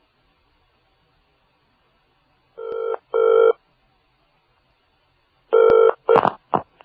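Telephone ringing in the British double-ring pattern. Two short rings come close together, then after a pause a third ring begins and is cut short, followed by a few clicks near the end.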